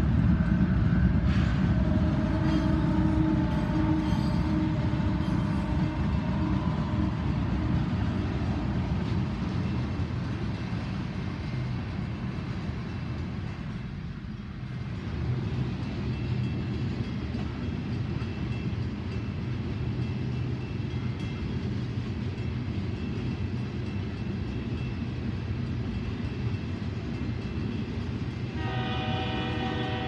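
Freight train passing: diesel locomotives (GE-built Union Pacific C44ACM and Norfolk Southern C40-9W) go by loudest at the start, followed by the steady rumble of loaded tank cars rolling past. A multi-tone train horn starts sounding just before the end.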